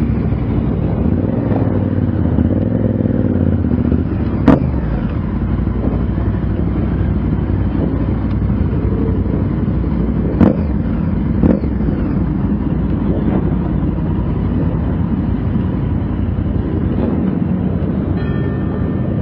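Motorcycle engine running steadily as the bike is ridden slowly, heard from a helmet-mounted camera as a continuous low rumble. Three sharp clicks stand out, about four and a half seconds in and again twice around ten to eleven seconds in.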